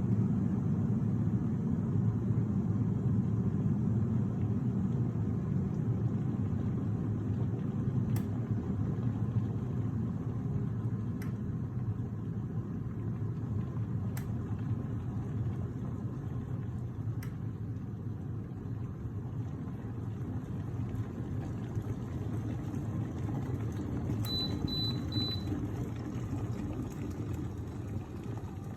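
Electrolux E7K1-6BP electric kettle heating water: a steady low rumble that slowly grows quieter. A few faint clicks come about every three seconds, and near the end there are three short high-pitched beeps.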